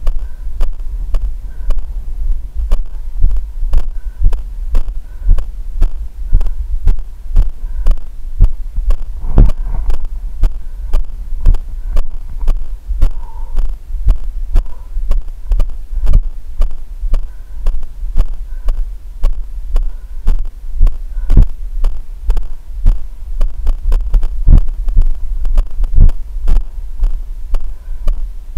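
Footfalls of a runner on a dirt and grass trail jolting a body-worn camera in a quick, regular beat, over a steady low rumble.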